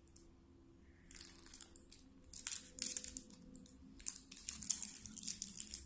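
Rustling, crinkling handling noise in many short irregular crackles, starting about a second in.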